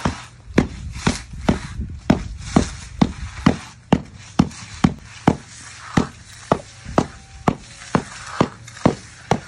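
Hand stamp tamper pounding concrete stamping mats into fresh concrete: a steady run of sharp thuds, about two a second.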